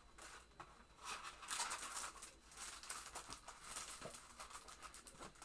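Packaged paper craft supplies being handled: irregular crinkling and rustling of plastic wrap and paper, loudest about one and a half to two and a half seconds in.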